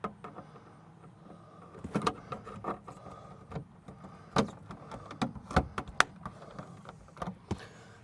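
Irregular clicks and knocks of a replacement RV carbon monoxide/propane detector and its packaging being handled, over a faint steady hum.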